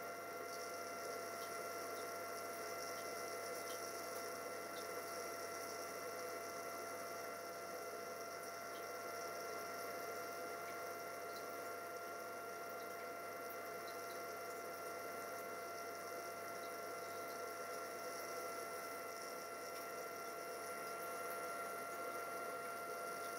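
Steady electrical hum with a thin, high-pitched whine over a soft hiss, unchanging throughout.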